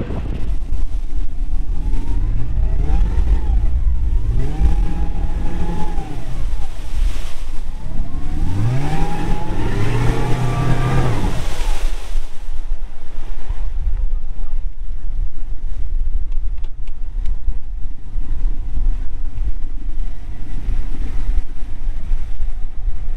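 Boat's outboard motor revved up several times, its pitch rising and holding, over a steady low rumble; the revving stops about twelve seconds in. The boat is in shallow water and about to be caught in the mud.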